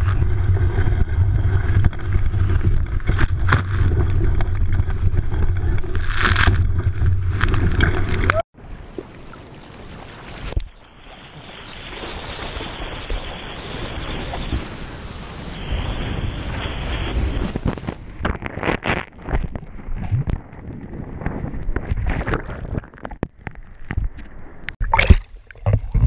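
Ocean water rushing and splashing, with a steady low rumble and wind on the microphone in the first part. The rumble cuts off abruptly about eight seconds in, giving way to a quieter hiss of water, then more splashing with a few sharp hits near the end.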